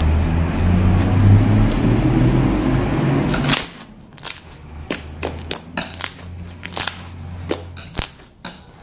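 Loud rumbling, rustling handling noise for about three and a half seconds, then it cuts off sharply into a run of irregular sharp clicks and pops: homemade borax-activated slime being squeezed and pressed, its trapped air popping.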